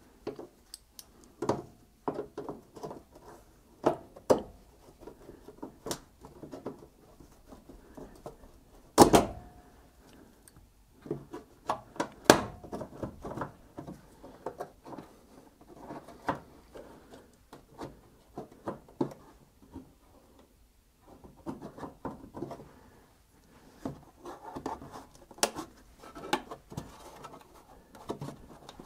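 Plastic push-in bumper clips in a wheel arch being worked loose with pliers and a screwdriver: an irregular run of clicks, taps and scrapes of metal tool on plastic, with two louder sharp clicks about nine and twelve seconds in.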